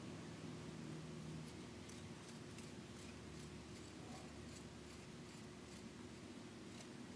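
Faint, irregular small clicks and scraping of threads as the threaded end of an OAL gauge is screwed by hand into a freshly tapped 5/16-36 hole in a brass cartridge case head.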